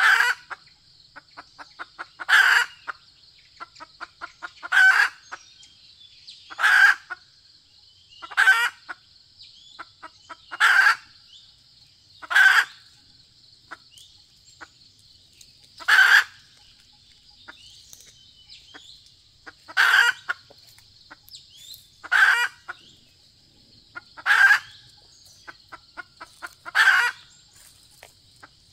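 Female red junglefowl calling: runs of soft, quick clucks, each building into a loud cackling call, repeated about every two seconds, with a longer pause midway.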